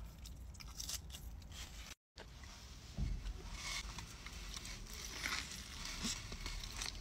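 Close-miked eating: big bites into a soft cheeseburger and wet chewing, with clicky mouth noises. There is a brief break in the sound about two seconds in.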